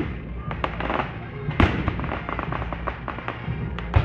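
Fireworks going off: an irregular run of sharp bangs and crackles, with one louder bang about one and a half seconds in.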